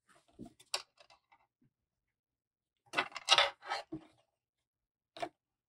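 Fabric being handled and shifted on a sewing machine bed: short rustles and light knocks, faint at first, with a louder cluster about three seconds in and one more brief rustle near the end.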